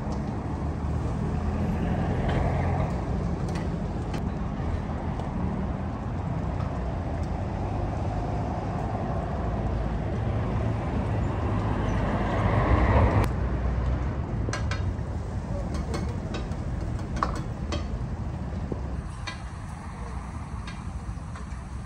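Steady low rumble of a street-stall gas wok burner under a wok of egg frying in oil. The rumble swells and then drops abruptly about two-thirds of the way through, after which metal utensils clink against the wok several times.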